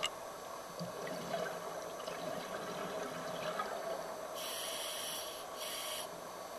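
Scuba regulator breathing heard underwater, with a hiss in two parts about four and a half seconds in, over steady underwater noise.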